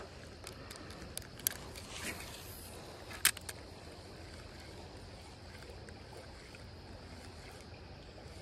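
Steady rush of flowing creek water, with a few short sharp clicks about a second, a second and a half, and three seconds in.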